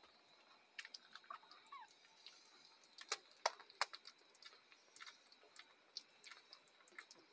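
Week-old schnauzer puppies suckling at their mother's teats: faint, irregular wet clicks and smacks, loudest around three to four seconds in.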